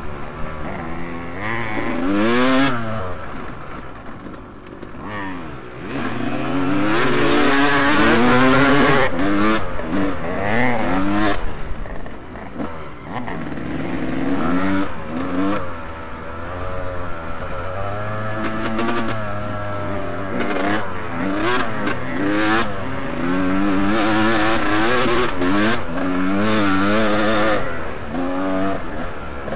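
Motocross bikes racing on the track, several engines revving up and dropping off again and again with overlapping rising and falling pitches. The sound dips briefly a few seconds in and again near the middle.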